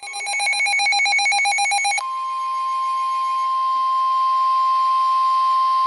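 Rapid pulsing electronic alert beeps for about two seconds, then the steady single-pitch NOAA Weather Radio warning alarm tone, over faint radio hiss. The tone marks the start of a new warning broadcast.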